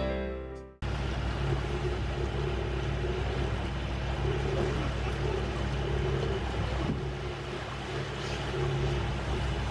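Guitar music fades out under a second in. After it, an engine runs at a steady speed with a low, even hum under a steady rushing noise.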